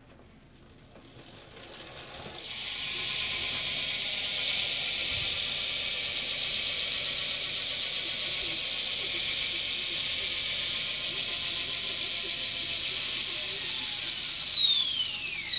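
Sealed 9-tooth cassette hub of a BMX rear wheel freecoasting after a spin: a fast, steady buzz of ratcheting clicks starting about two seconds in, not that loud. Near the end its pitch falls sharply as the wheel slows.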